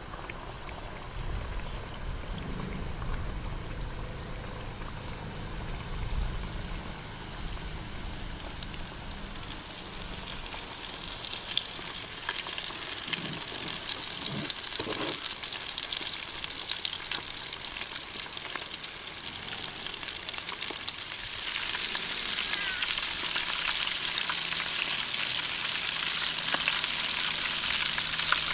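Breaded chicken deep-frying in hot oil, a steady sizzle that grows louder about a third of the way in and again after about two-thirds.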